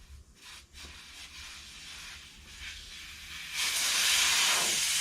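Air hissing out of a truck tire through its valve stem as the valve core is unscrewed to let the pressure out. A faint hiss grows, then becomes a sudden loud, steady rush about three and a half seconds in as the core comes free.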